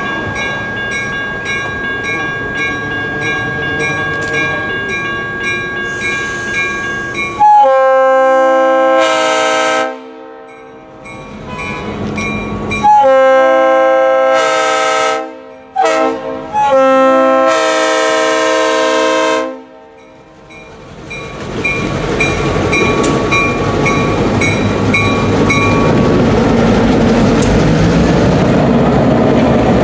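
A bell rings steadily, then a Leslie RS3L three-chime air horn on a GP38 diesel locomotive sounds the grade-crossing signal: two long blasts, a short one and a final long one. The train then rolls by, wheels clacking on the rail joints, while the bell rings on.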